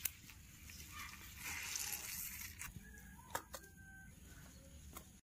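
Wet mushrooms handled in a steel bowl of water: light clicks and knocks on the metal, with a rush of water about a second and a half in. A chicken clucks briefly in the background a little past halfway.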